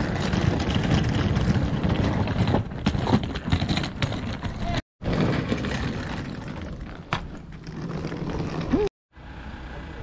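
Small wheels of a hard-shell suitcase rolling over rough paving, a steady rumble with rattling clicks. It cuts off abruptly about five seconds in, and quieter outdoor noise follows.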